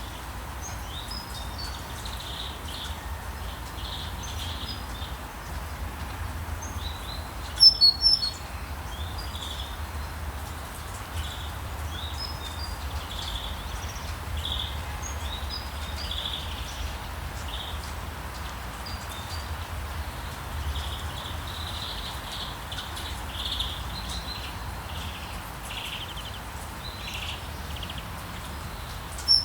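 Small birds chirping and singing over a steady hiss of rain and a low town rumble, with a few loud, sharp high chirps from a nearby bird about eight seconds in.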